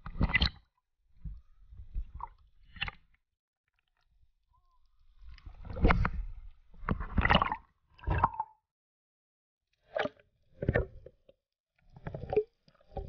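Water splashing and sloshing right at a camera bobbing at the waterline, in irregular bursts of about a second with short quiet gaps between.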